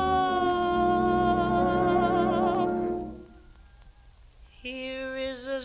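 A woman's jazz vocal holding a long note with vibrato over a small jazz band, the close of the song; it fades out about three seconds in. After a short near-silent gap, a new held note with vibrato starts near the end.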